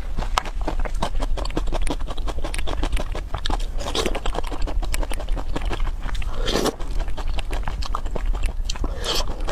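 Close-miked eating sounds of a person biting and chewing soft yellow peach halves: a dense run of wet mouth clicks and smacks, with one longer, louder wet sound about two-thirds of the way in, over a steady low hum.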